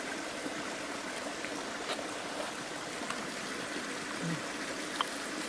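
Small mountain stream running and trickling over stones, a steady rush of water.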